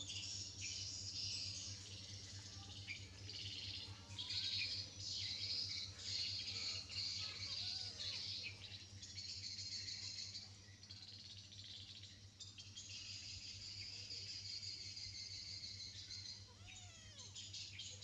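Dense outdoor bird chirping throughout, with a few short, faint rising-and-falling squeaks from a small animal and a steady low hum underneath.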